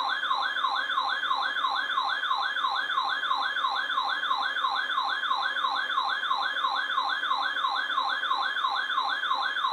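Weather radio receiver sounding its electronic siren alert for a Civil Emergency Message: a loud, even, repeating falling whoop, about three sweeps a second, starting abruptly.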